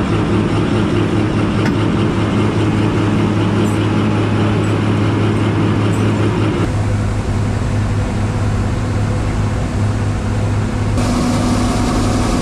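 Large diesel engine of farm machinery running steadily. Its sound shifts about two-thirds of the way through and again near the end.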